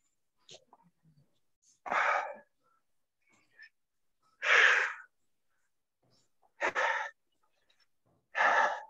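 A man's heavy exertion breathing: four breathy, forceful exhales about two seconds apart while he holds a deep squat and throws punches.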